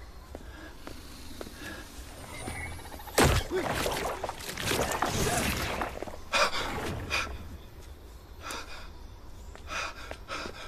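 A sudden loud hit about three seconds in, followed by a man's gasping, frightened breaths and another sharp burst a little after six seconds.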